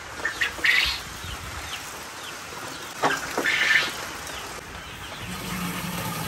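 Young quail chirping, with short falling peeps. A plastic poultry drinker rattles as it is handled, about a second in and again about three seconds in. Near the end a tap runs water into it.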